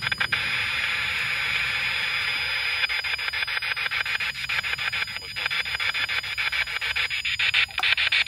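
Spirit box sweeping through radio frequencies: a steady hiss of static chopped very rapidly as it jumps from station to station.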